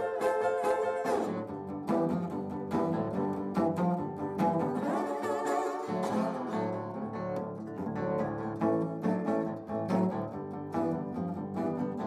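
Amplified acoustic steel-string guitar playing a picked blues instrumental break, with no singing. Low bass-string notes come in more strongly about halfway through.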